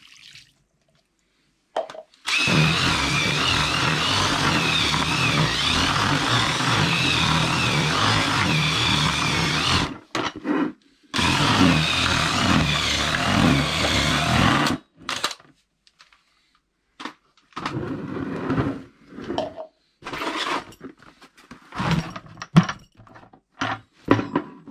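A cordless drill with a paddle mixer churns damp groundbait in a plastic bucket in two long runs, about seven seconds and then about three and a half, its whine wavering in pitch. Afterwards come scattered short knocks and rustles of the bucket and mix being handled.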